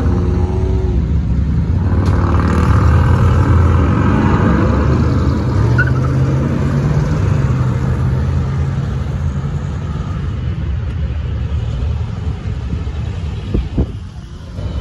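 Car engines and exhausts as show cars drive out past one after another, the loudest a classic Dodge Charger's V8 pulling away at the start. The sound is loudest in the first few seconds and slowly fades.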